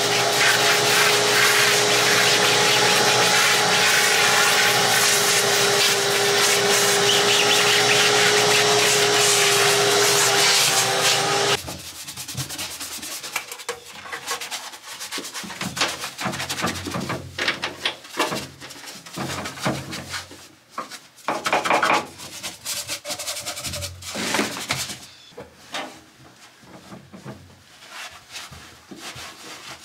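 Vacuum cleaner running steadily with a crevice nozzle drawn over a canvas soft top, a constant whine that stops abruptly about eleven seconds in. Then quieter, irregular scrubbing and rubbing strokes of a small brush on the dashboard and steering column.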